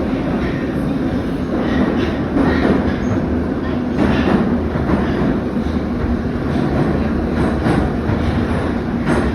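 Moscow Metro 81-717/714 train running through a station at speed without stopping, with a steady loud rumble and a loud knocking of the wheels over the rails.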